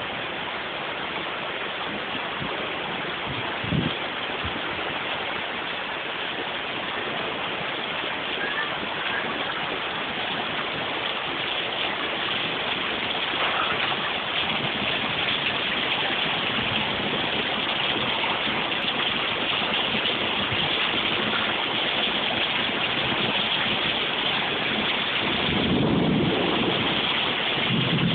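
Rain falling steadily, a continuous even hiss that grows slightly louder. One brief knock sounds about four seconds in.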